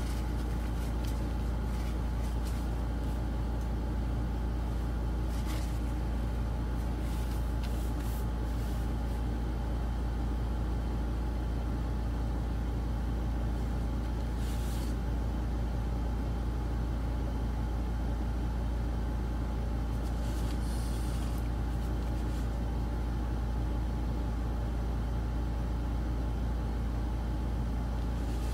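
Steady low background hum, unchanging throughout, with a few faint brief noises now and then.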